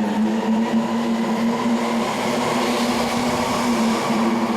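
Sendai Subway Tōzai Line train at the station platform, giving a steady low electric hum over a running rumble. The hum breaks briefly about four seconds in.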